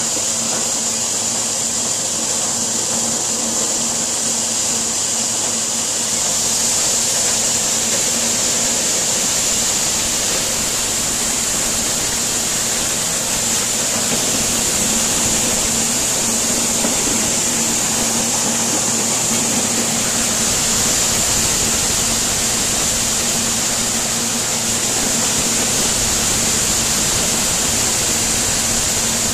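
John Deere corn sheller running steadily, driven by a tractor, shelling ears of corn. It gives a steady hum under an even, unbroken hiss.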